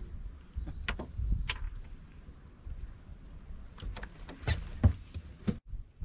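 Wind rumbling on the microphone, with a scattering of sharp clicks and knocks from handling a fish and tackle in a boat; the two loudest knocks come about four and a half and five seconds in.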